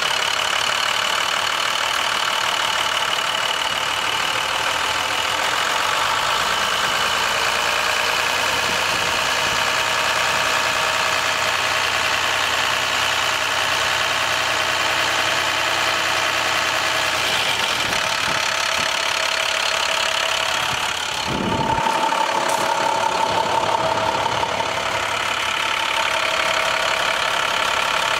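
International MaxxForce DT inline-six diesel engine idling steadily, heard close up in the open engine bay. Its tone shifts slightly about two-thirds of the way through.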